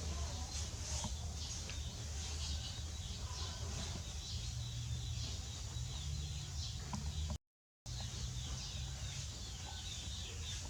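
Rural outdoor ambience: faint birds chirping over a low steady hum. The sound cuts out completely for a moment about seven seconds in.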